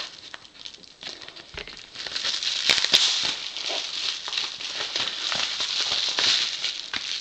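Packaging from a mailed package being handled and pulled open by hand, with a continuous crinkly rustling and small crackles. It grows louder about two seconds in.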